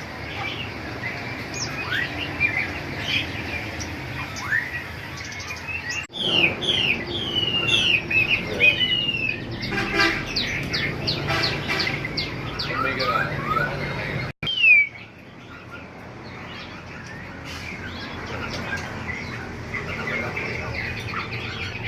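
Many caged songbirds chirping and whistling together in a dense, overlapping chatter. The sound breaks off for an instant twice.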